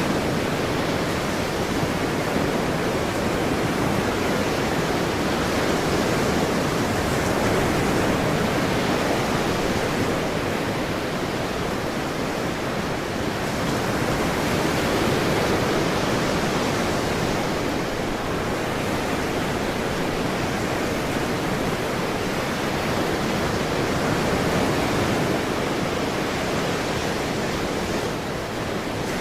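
Ocean surf washing continuously, a dense steady rush of water that swells and eases gently in loudness every several seconds.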